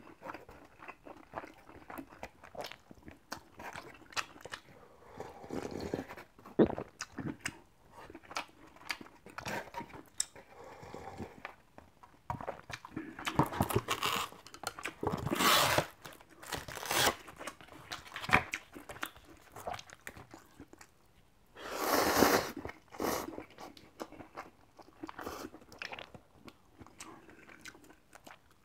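Close-miked eating sounds: chewing and crunching, with many light clicks of wooden chopsticks against styrofoam bowls. There are a few louder, longer noisy stretches about halfway through and again about three-quarters in.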